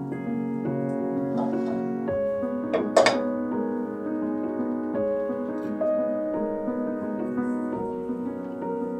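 Soft background piano music, with a single short knock about three seconds in.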